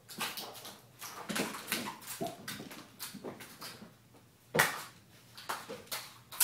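Kittens leaping and landing on a hardwood floor: irregular light thumps and scrabbling of paws, with one louder landing thump a little past halfway.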